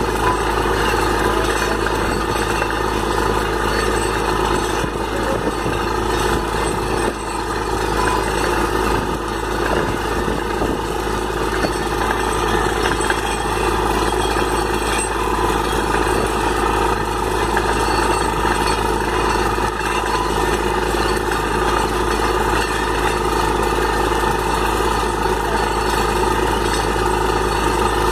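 Truck-mounted borewell drilling rig running steadily, its engine and air compressor blowing water and slurry up out of the borehole.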